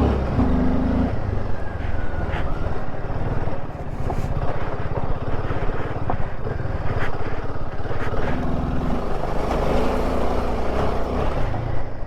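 Royal Enfield Himalayan 450's single-cylinder engine running as the motorcycle is ridden, with steady wind and road noise and a few short clicks along the way.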